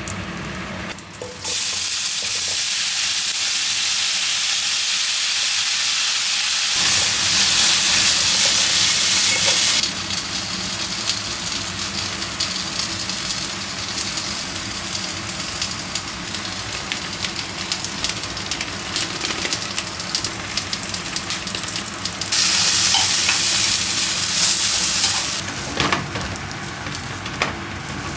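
Food frying in hot oil: a steady sizzle with small crackles and pops, growing louder twice for a few seconds at a time.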